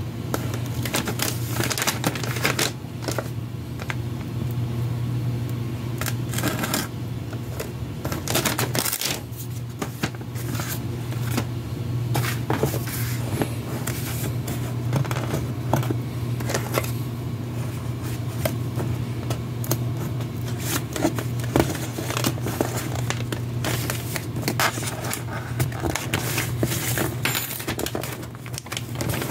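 Paper handling: an envelope and gift-wrapping paper rustling, crinkling and scraping under the hands as the envelope is worked loose, with many small clicks and crackles. A steady low hum runs underneath.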